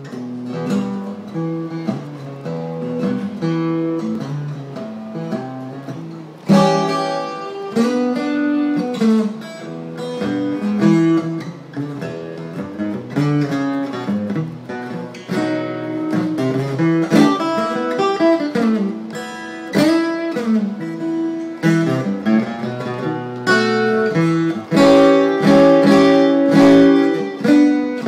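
Acoustic guitar playing blues, single picked notes and bass runs mixed with strummed chords; it gets louder and brighter about six and a half seconds in and again near the end.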